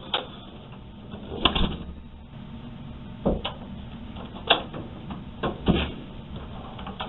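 A room door clicking and knocking: a scattering of short, sharp knocks and latch clicks as the door is shut and then opened again.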